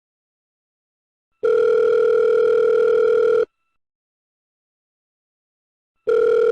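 Telephone ringing tone, a steady buzzy tone in two-second bursts: one starts about a second and a half in, and the next begins near the end, with silence between, the pattern of a call ringing out unanswered.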